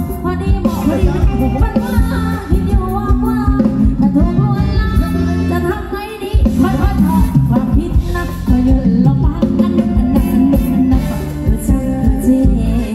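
Live band playing loud Thai ramwong dance music, a singer over a steady beat; the sound dips briefly about six seconds in and comes straight back.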